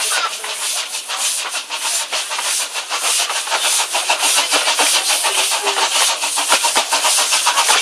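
Narrow-gauge steam locomotive letting off a heavy hiss of steam, broken by a quick, uneven run of puffs, as it draws the train slowly along the platform.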